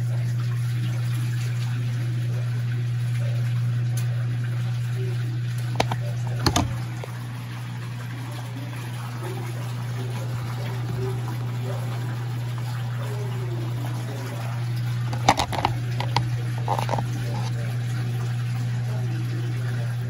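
Consul Super Cargo CWL10A top-loading washing machine draining its soapy wash water: the drain pump hums steadily under the sound of running water. A couple of short knocks come about six and fifteen seconds in.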